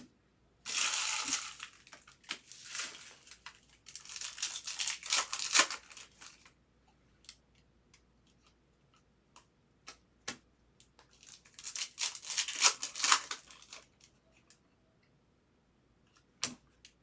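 Trading-card pack wrappers being torn open and crinkled by hand in four bursts, with small clicks and taps from handling the packs and cards in between.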